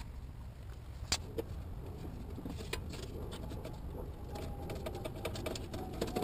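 Scattered metallic clicks and taps of hand tools at work on a car's suspension. They grow quicker from about four seconds in, over a faint, slowly falling tone and a low steady hum.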